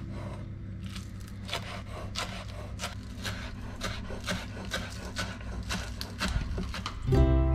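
Kitchen knife chopping on a wooden cutting board, sharp knocks a little over two a second as a green vegetable is sliced into rings. Guitar music starts near the end.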